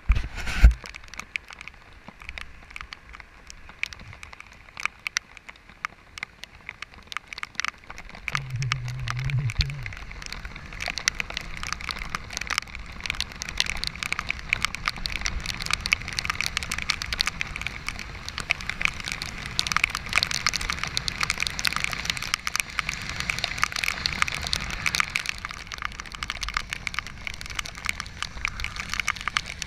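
Rain on a bicycle-mounted camera, raindrops clicking and crackling against its housing many times a second, over a steady hiss of tyres on a wet road. A brief low hum sounds about eight seconds in.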